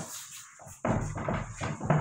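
Cloth duster wiping a whiteboard: a run of quick, uneven rubbing strokes that begins about a second in.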